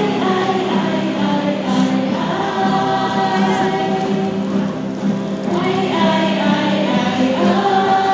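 Mixed choir of men's and women's voices singing in harmony, holding long sustained chords that change every second or two.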